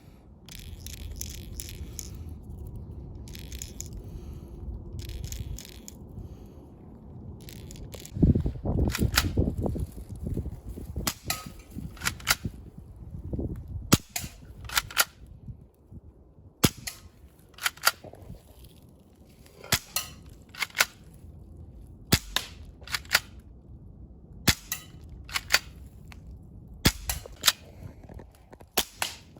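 Crosman PSM45 spring-piston BB air pistol firing repeatedly. The shots are sharp snaps, often in close pairs, and the pistol's spring has to be cocked by racking the slide before each shot. The first several seconds hold lighter clicking and rattling handling, and there is a loud low thump about eight seconds in.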